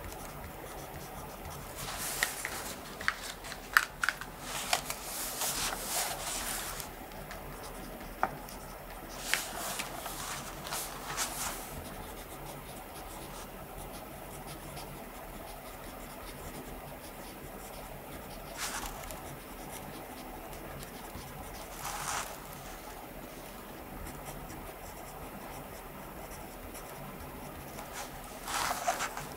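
Pen scratching on paper in short bursts of writing, with a few sharp clicks among the first strokes, over faint room tone.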